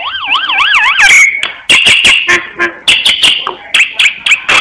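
Black myna singing: it opens with a loud whistle that wavers quickly up and down like a siren for about a second. A run of harsh chattering notes and sharp clicks follows.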